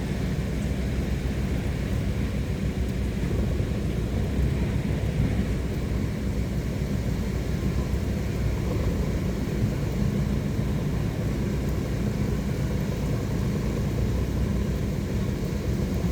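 A boat engine running steadily: an even, unbroken low rumble.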